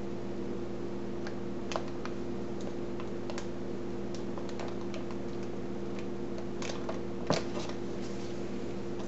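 Light, irregular clicks and taps as dividers are fitted into a freezer-paper-lined wooden slab soap mold, with a sharper knock about seven seconds in. A steady low hum runs underneath.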